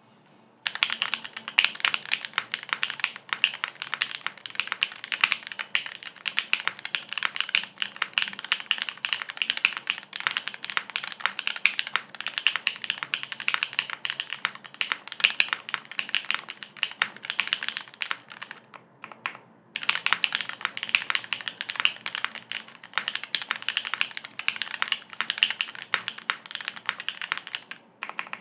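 Fast, continuous typing on a Keycult No. 2/65 mechanical keyboard with lubed linear switches (Cherry MX Black housings with NK Cream stems), an aluminum plate and no foam: a dense run of keystrokes, with a brief pause about two-thirds of the way through before the typing resumes.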